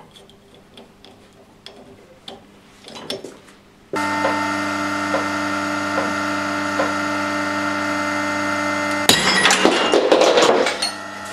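Faint metallic clicks of a steel shackle and cable being handled, then the pulling machine of a test rig starts suddenly with a steady hum of several fixed tones. About five seconds later a loud crackling, grinding burst breaks in over the hum as the load test on a worn rope-course pulley reaches its peak.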